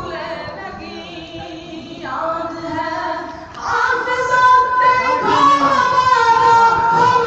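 A solo voice singing a devotional Urdu poem (manqabat) into a microphone, with long held notes; it grows louder about three and a half seconds in.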